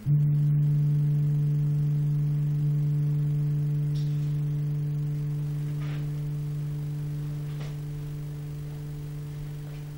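A single low, pure electronic tone with a couple of fainter overtones, like a synthesised chime or singing bowl. It sounds sharply at the start and is held, slowly fading over about ten seconds. It comes from the installation's ambient music, which software generates in real time from the light level read by a photoresistor.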